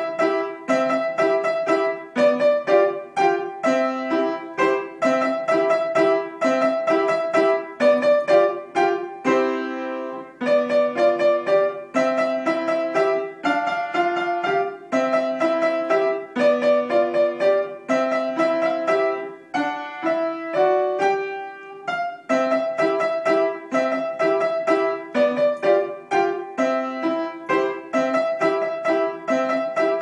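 Upright piano played with both hands: a lively piece built on quick repeated notes in the middle register, with brief breaks about ten and about twenty seconds in.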